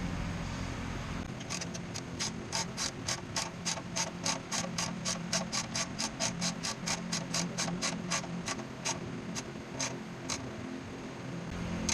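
Ratchet wrench clicking steadily, about four clicks a second, for around nine seconds before stopping.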